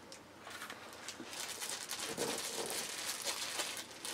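Thin plastic wrapping crinkling as it is handled and pulled off a new folding knife, starting about a second in and going on steadily.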